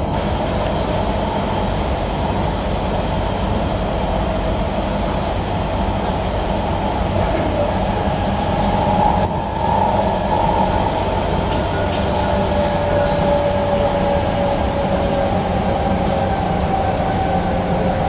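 Kawasaki C151B metro train running between stations, heard from inside the car: a steady rumble of wheels and running gear on the track, with a faint whine that slowly drops in pitch in the second half.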